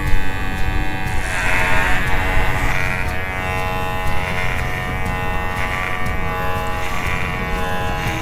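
Cordless electric hair clippers buzzing steadily while shaving a head down to a very short cut. The buzz brightens and dulls now and then as the blades work through the hair.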